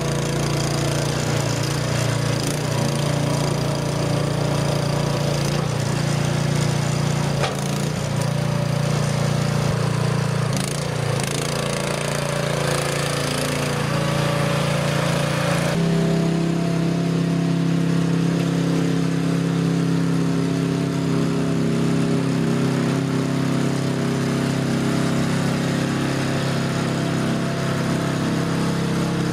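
Jansen RD-500 tracked mini dumper with hydrostatic drive, its engine running steadily while the machine pushes sand with its front blade. The engine note shifts abruptly about sixteen seconds in.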